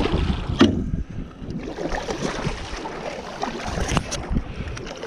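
Small boat moving through slushy, ice-strewn lake water, with wind buffeting the microphone and water washing along the hull. Two brief sharp knocks, about half a second in and near the end.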